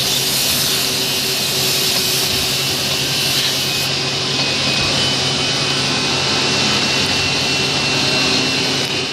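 Automatic wood-drilling machine running continuously: a steady motor whine under a harsh hiss, typical of power-tool work on wood. The highest part of the hiss drops away about four seconds in.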